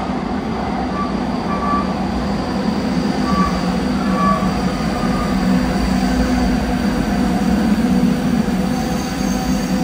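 Siemens P2000 electric light-rail train arriving at an underground station platform: a steady, echoing rumble that grows louder as the cars come alongside. A few short high-pitched tones sound in the first half.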